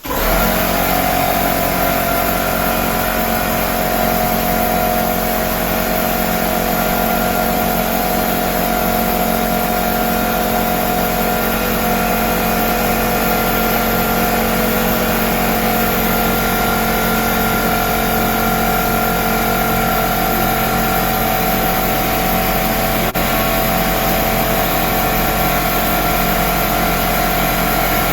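A steady, loud machine drone, like a motor running, with several steady tones. It starts abruptly and holds unchanged throughout.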